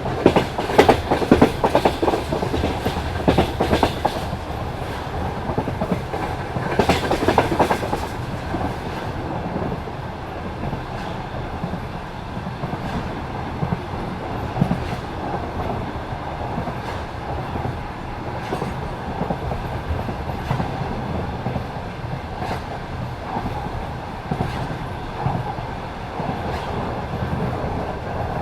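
Passenger train wheels knocking over rail joints at speed, the classic clickety-clack of jointed track over a steady rolling rumble. The knocks come thick and loud for the first eight seconds or so, then thin out to occasional clicks over the rumble.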